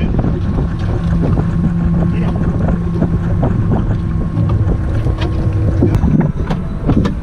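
Wind buffeting the microphone on a small boat, over a steady low hum. Near the end, a series of sharp knocks and clatters as gear is handled at an open deck hatch on the fiberglass boat.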